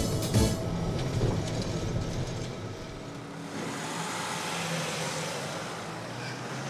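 Street traffic noise with a vehicle passing: an even rush swells about three and a half seconds in and fades again.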